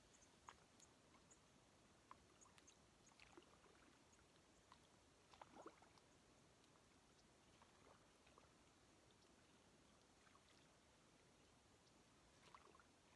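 Near silence, with faint small splashes and gurgling as a water bottle is dipped and filled at the edge of a lake; a slightly louder gurgle about five and a half seconds in.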